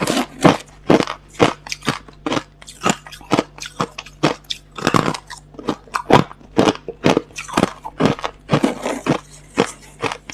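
A person chewing hard crushed ice close to the microphone: sharp, crisp crunches at about two a second.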